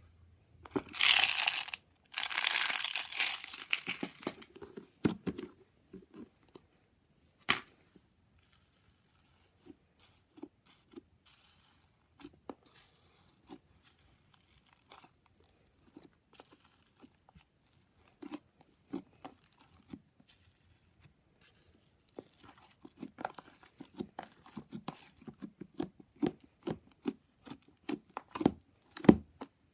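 Slime being stretched and squeezed by hand. It makes crackly, tearing hiss in the first few seconds, then scattered sticky clicks and pops that grow denser near the end.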